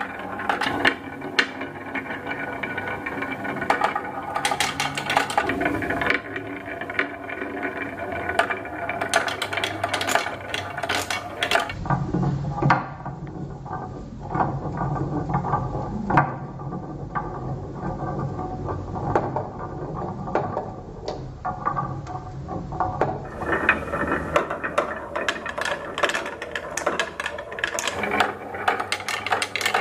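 Marbles and small toy vehicles rolling and clattering down a wooden marble run and ramp: a dense, uneven stream of clicks and rattles. From about 12 s to about 23 s the rolling sounds lower and heavier.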